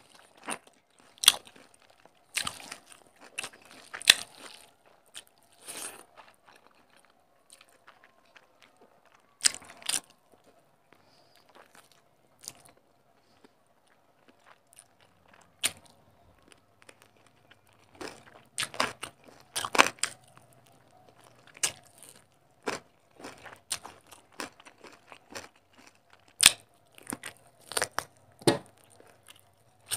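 Close-miked mukbang eating: a person chewing and crunching a mouthful of rice and fried katla fish eaten by hand, with irregular sharp clicks and crackles of the mouth and food throughout.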